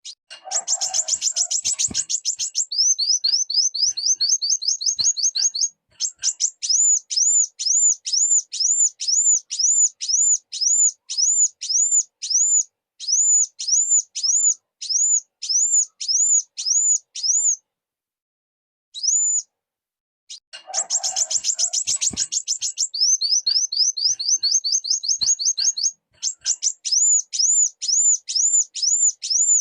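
Kolibri wulung sunbird song: a fast, high chittering trill, then a quick run of short rising notes, then a long series of evenly spaced, high arched whistled notes at about two a second. After a short pause and one lone note, the same sequence starts over, as in a looped recording.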